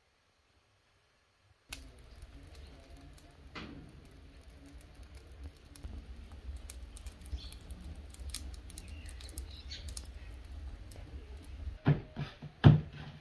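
A brushwood fire burning in a brick tandoor, with scattered crackles and pops over a steady low rumble, starting after a short silence. Near the end, a few loud thumps of dough being worked on a wooden board.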